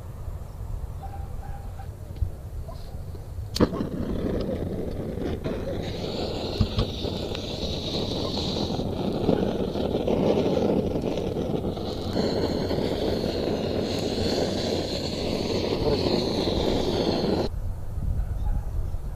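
Hose-fed gas blowtorch: lit with a sharp click a few seconds in, then a steady hissing flame as it melts and browns grated cheese, shut off suddenly near the end.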